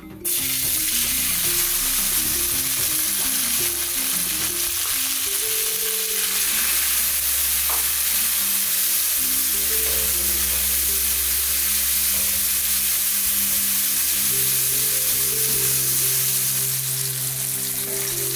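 Chopped tomato, onion and sweet and hot peppers hitting hot oil in a nonstick frying pan, setting off a loud sizzle that starts suddenly and runs on steadily as they are stirred with a spatula.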